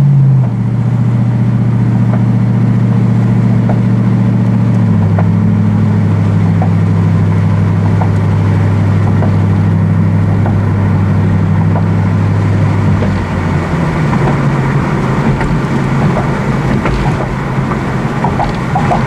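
Ford Mustang GT V8 running through a Flowmaster Outlaw Series axle-back exhaust, heard inside the cabin with the windows down as the car drives along. The exhaust note is steady and drops in pitch twice, about half a second and about five seconds in. Past about thirteen seconds it fades under road and wind noise.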